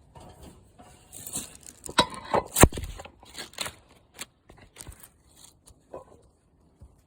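Objects being handled and set down: a run of clicks, knocks, scrapes and rustles, the loudest knock about two and a half seconds in, thinning to a few small clicks.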